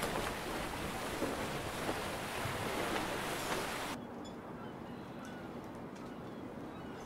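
Sea waves washing on a beach with wind on the microphone, a steady rushing noise. About four seconds in it cuts off suddenly to a quieter ambience with faint short chirps.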